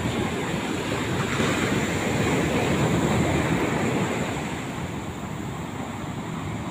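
Sea waves surging and breaking, with wind buffeting the microphone. The surf swells loudest in the first half and eases a little near the end.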